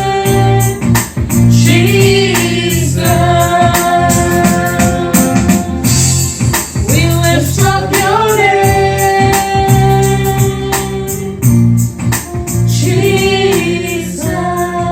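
A Christian worship song: a voice sings long held notes over sustained electronic organ chords, with a steady beat throughout.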